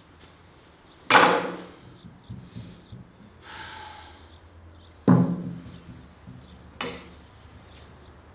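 Heavy thuds of a lamb's head knocking down onto a wooden board: two loud dull impacts about a second and five seconds in, and a lighter knock just before seven seconds, with a short scrape or rustle in between.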